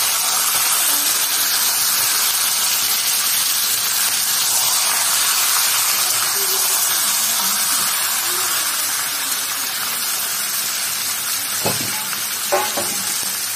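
Raw chicken pieces sizzling in hot oil with fried onions in a kadhai, a steady frying hiss, as they are stirred in. A metal spatula knocks against the pan twice near the end.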